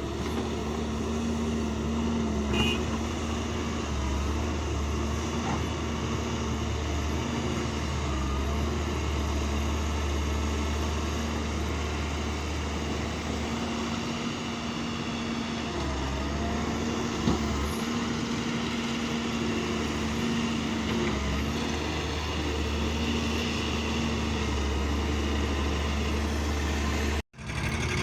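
Heavy earthmoving machine's engine running steadily with a low hum and a held tone above it, broken by two brief knocks, one early and one about two-thirds of the way through.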